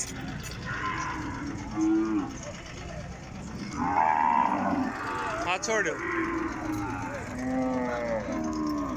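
Cattle mooing: several drawn-out calls, the loudest about four seconds in.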